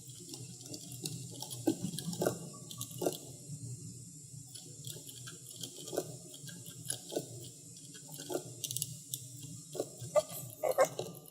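Soft, irregular clicks and taps of a computer mouse and keyboard, a few a second at most, over a steady low hum.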